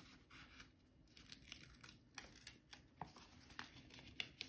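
Faint paper handling: stickers being peeled off a sheet and pressed onto a planner page, soft crinkles and small ticks, a few sharper ones past the middle and near the end.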